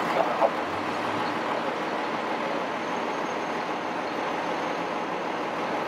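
Steady noise of city street traffic, with buses and other vehicles going by.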